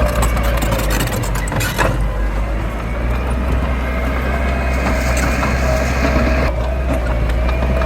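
Heavy earthmoving machine's diesel engine running steadily with a whine, and a crunching, cracking clatter over the first two seconds that then dies away.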